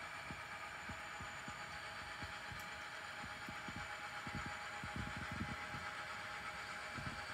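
Model diesel locomotives (ScaleTrains Rio Grande SD40T-2) running along layout track with a train of boxcars: a steady hum with irregular low thumps, more of them about four to five seconds in.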